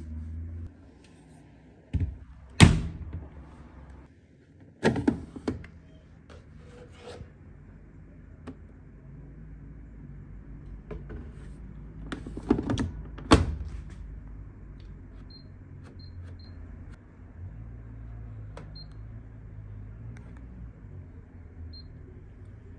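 Several sharp knocks and clatters of objects being handled, loudest about a quarter of the way in and again past the middle, with lighter ticks in between over a low steady hum.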